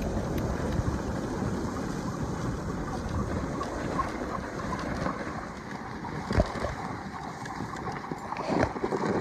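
Dog sled moving along a packed snow trail behind its team: a steady rush of the runners on snow mixed with wind on the microphone. A sharp knock about six and a half seconds in, and a few more clatters near the end.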